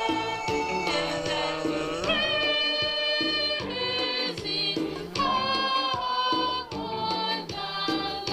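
Choir singing a communion hymn over instrumental accompaniment with a steady beat.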